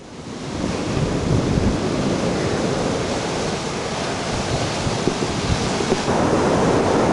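Sea waves breaking and washing on the shore: a steady rushing surf that fades in over the first second.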